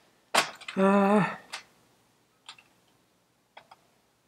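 A man's short, flat hummed "mm" while he thinks, set between two sharp clicks. It is followed by a few faint, sparse clicks of small parts or tools being handled on the workbench.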